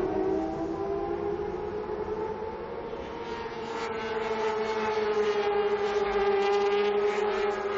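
600cc racing motorcycle engines at high revs giving a steady, high-pitched wail whose pitch drifts slightly up and down. About halfway through, a rougher, louder engine note builds in.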